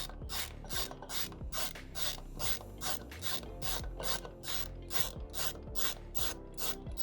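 A hand screwdriver turning out the screws of an old speaker mounting bracket: a rhythmic rasping, ratchet-like stroke repeating about two to three times a second.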